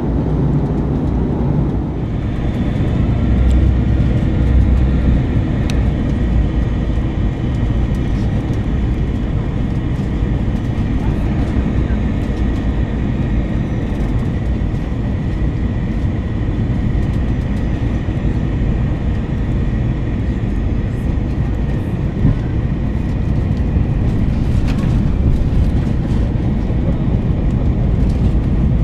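Steady cabin noise inside an Airbus A321-200 in flight on the descent: a deep, even rumble of engines and airflow, with a faint steady whine.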